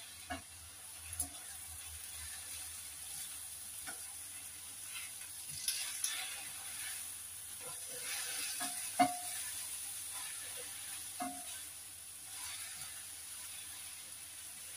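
Stir-fry sizzling in a stainless steel frying pan as a spatula stirs it, with a steady hiss and scattered sharp clinks of the spatula against the pan; the loudest clink comes about nine seconds in.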